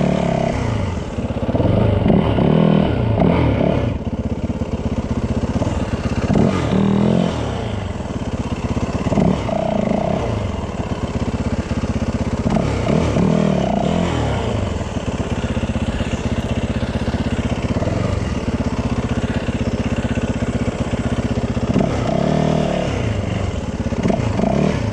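Yamaha WR450F's single-cylinder four-stroke engine running under way, its revs rising and falling again and again as the throttle is worked.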